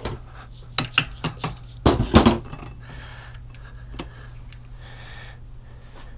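Metal clinks and knocks of clutch parts being worked into place on a Suzuki GS650G engine as the clutch center is turned into engagement: a run of sharp clicks about a second in, the loudest knocks about two seconds in, and a single click about four seconds in. A steady low hum runs underneath.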